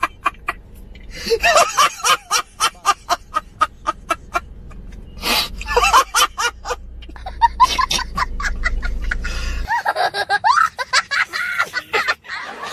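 People laughing in several runs of quick ha-ha-ha bursts.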